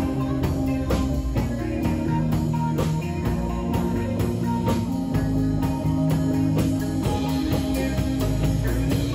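Rock band playing live: electric guitar, bass and drum kit, with sustained guitar notes over a steady drum beat.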